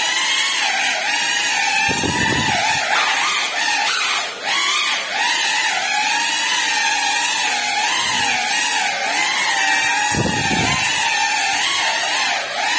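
GEPRC CineLog35 cinewhoop drone flying: the whine of its brushless motors and ducted propellers keeps wavering up and down in pitch with the throttle. Two brief low rumbles come about two seconds in and again near ten seconds.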